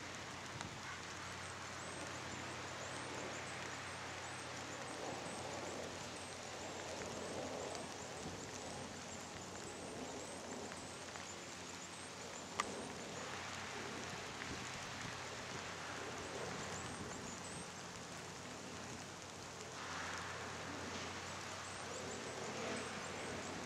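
Steady rain falling on dead leaves and the ground, an even patter throughout, with one sharp click about halfway through.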